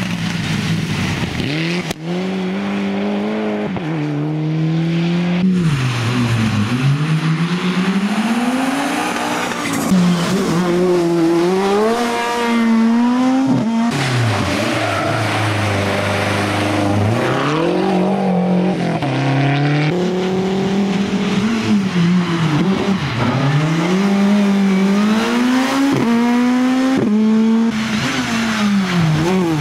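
Rally car engines revving hard as the cars accelerate past. The pitch climbs and drops sharply again and again with each gear change, over several passes.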